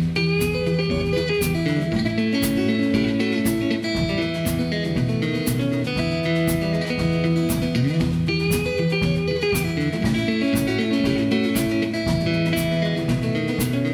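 Martin 00-28 steel-string acoustic guitar fingerpicked, with an alternating bass line under the melody, accompanied by a drum kit keeping a steady beat with sharp, evenly spaced hits.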